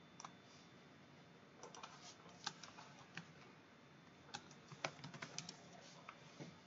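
Faint computer keyboard typing in two short runs of key clicks, the first starting about a second and a half in, the second about four seconds in.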